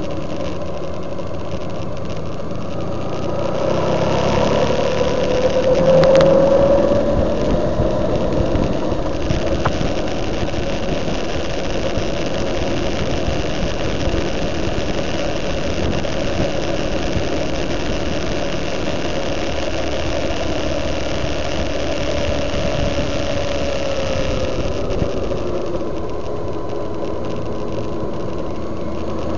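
Motorcycle engine running at road speed under wind and road noise. Its note climbs about five seconds in, holds, and drops back near the end. There is a single sharp click about six seconds in.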